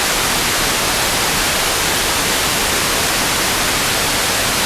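Steady loud FM radio static: an even hiss from an RTL-SDR receiver tuned to 65.93 MHz, with the weak sporadic-E broadcast lost in the noise.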